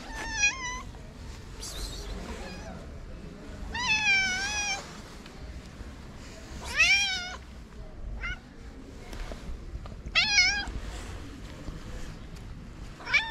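Calico cat meowing repeatedly: four short meows about three seconds apart, with another beginning right at the end.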